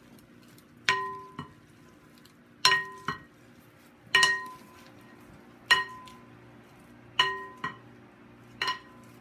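Wooden salad spoons knocking against a glass mixing bowl as the salad is tossed. About nine sharp clinks, roughly every second and a half and some in quick pairs, each leaving the glass ringing briefly.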